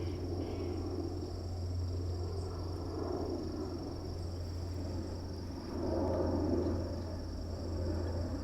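Outdoor ambience: a steady high insect drone over a constant low hum and a rushing noise that grows louder about six seconds in.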